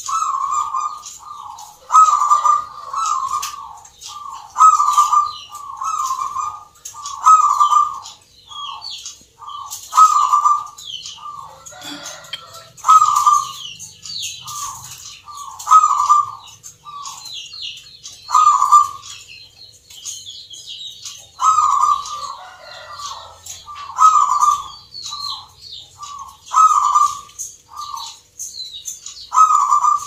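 Zebra dove (perkutut) cooing in its repeated rhythmic song phrases, pausing once about two-thirds through. Higher-pitched bird chirps sound over it.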